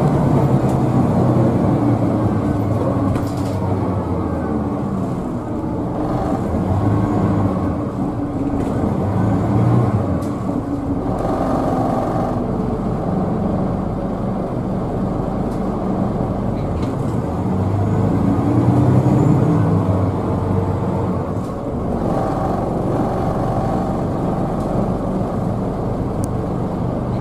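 Scania L94UB bus engine heard from inside the passenger cabin while driving, its note rising and falling several times as it pulls through the gears, over steady road noise.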